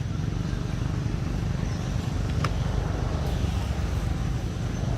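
Steady low rumbling background noise, with one brief high sound about two and a half seconds in.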